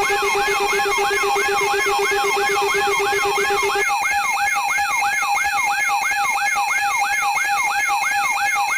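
Synthesized emergency-alert siren tones: a rapidly repeating upward sweep, about three a second, layered over steady electronic tones. One low tone drops out about four seconds in.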